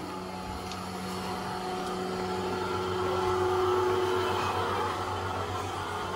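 A steady machine hum, as of a motor running: a low drone with a higher steady tone that swells a little around the middle.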